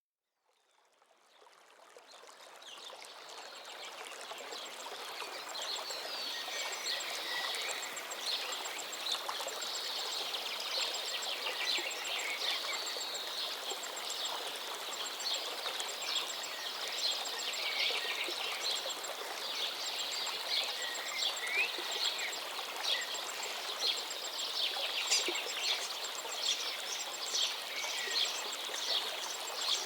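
Birds chirping over a steady rushing noise like running water, fading in over the first few seconds.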